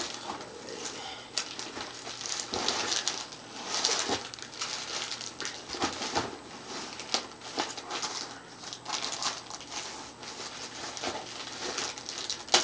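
Clear plastic wrap and cardboard packaging crinkling and rustling as they are handled, with many short, irregular crackles.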